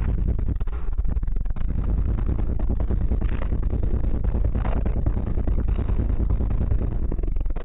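Sundown Audio 18-inch car subwoofer playing bass-heavy music at very high volume. It comes through as a dense, steady low rumble, with a few brief higher sounds on top.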